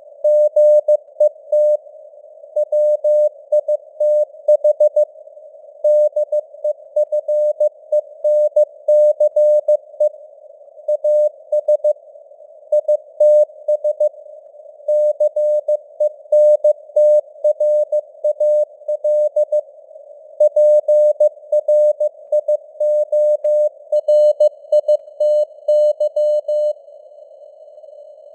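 Morse code (CW) sent at 15 words per minute: a single mid-pitched tone keyed on and off in dots and dashes over a narrow band of hissing simulated radio noise. The signal strength swells and fades (QSB).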